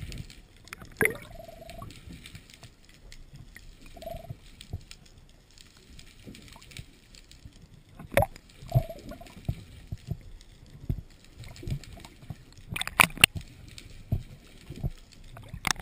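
Muffled underwater sound picked up by a GoPro in its housing just below the surface: scattered small knocks and clicks with a few short gurgles. A cluster of sharp knocks about thirteen seconds in and another near the end are the loudest.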